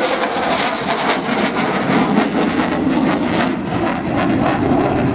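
Twin F100 turbofan engines of a Mitsubishi F-15J fighter jet maneuvering overhead: a loud, continuous jet roar with a crackling edge.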